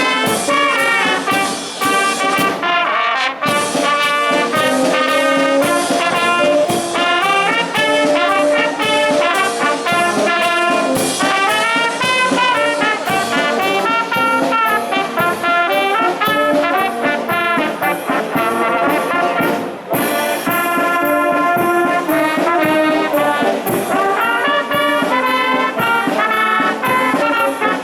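Brass band playing a solemn march, the notes moving in a steady rhythm.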